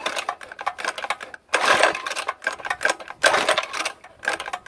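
Recoil starter of a small minibike engine being pulled several times in quick succession: a rattling whir of the rope and engine turning over with each pull, about once every second or so. The engine does not catch.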